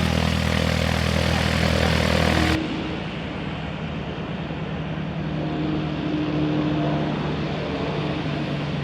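Propeller aircraft engine running steadily with a deep even drone, cutting off suddenly about two and a half seconds in. A quieter, duller engine drone follows.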